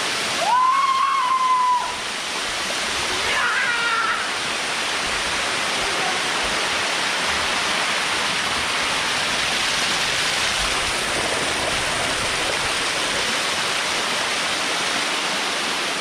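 Waterfall pouring over rock into a pool: a steady rushing hiss. A voice calls out twice over it, a long, loud high call about half a second in and a shorter falling one about three and a half seconds in.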